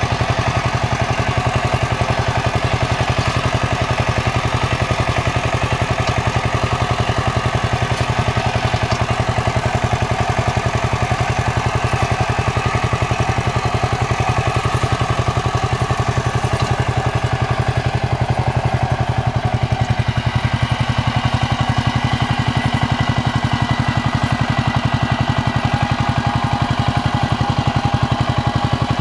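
Kamco power tiller's single-cylinder diesel engine running steadily under load with a rapid, even chugging beat while puddling flooded paddy mud. Its tone shifts slightly about two-thirds of the way through.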